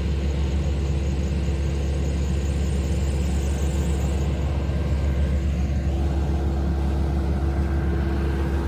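Heavy construction equipment's diesel engine running steadily, a continuous low rumble with a constant hum.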